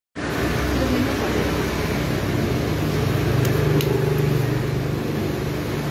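A steady low mechanical hum of a running motor, over street noise, with two light clicks a little past the middle.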